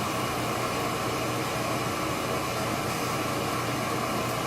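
Steady, even hiss of background noise with no changes or separate events.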